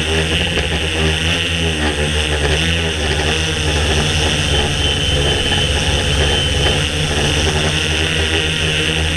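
DJI S800 Evo hexacopter's electric motors and propellers humming steadily in flight, heard from the camera mounted on the airframe, as a layered droning hum whose tones waver slightly as the motors adjust speed. A faint high whine rises above it for about two seconds in the middle.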